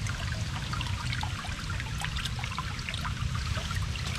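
Shallow river water trickling, with many small drips and splashes over a steady low rumble.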